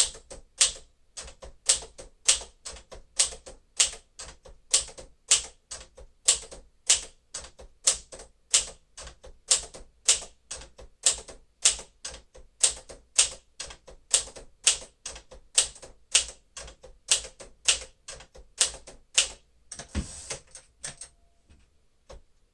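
1954 Smith-Corona Silent-Super manual typewriter typing at a steady pace, about two to three sharp keystrokes a second. Near the end, a brief rattle with a low thump, typical of the carriage being returned to the next line, and then the typing stops.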